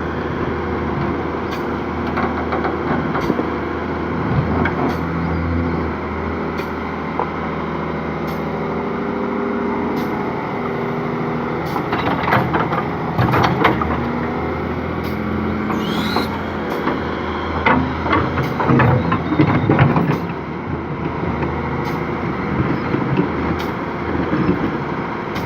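Case excavator's diesel engine running steadily under load as it digs, with bursts of clattering and scraping from the bucket in the soil around the middle, and a brief rising-then-falling whine.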